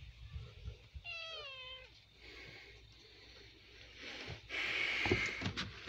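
A domestic cat meows once, about a second in, a single meow falling in pitch. Near the end comes a burst of rustling noise with a few bumps.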